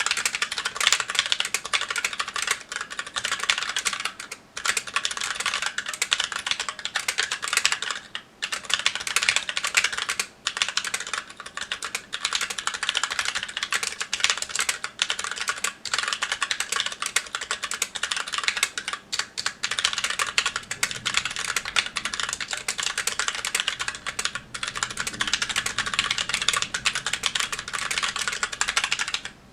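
Magicforce 68 mechanical keyboard with stock Gateron Brown tactile switches and GMK Olive keycaps, being typed on in a fast, continuous stream of key clacks. There are a few short pauses between bursts of typing.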